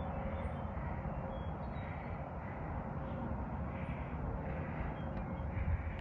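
Wind buffeting the microphone as a steady low rumble, with soft rasping sounds about once a second.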